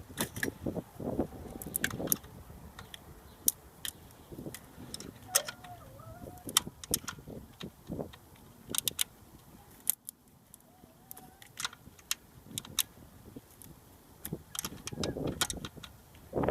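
Wrench clinking and clicking on a bolt and the surrounding engine-bay metal as an alternator mounting bolt is tightened by hand: a run of short, irregular metallic clicks.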